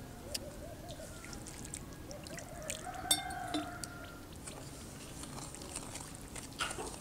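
Water glugging as it is poured from a pitcher into a small bowl of salt, followed by a metal spoon stirring in the bowl with a few clinks.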